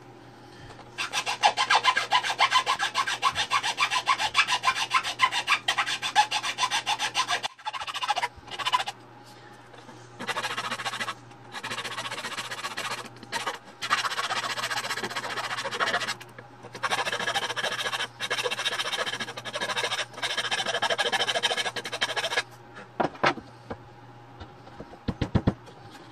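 A hand file rasping on a thin wooden part in fast back-and-forth strokes. It comes in spells of a few seconds with short pauses, the longest near the start. A faint steady hum runs underneath.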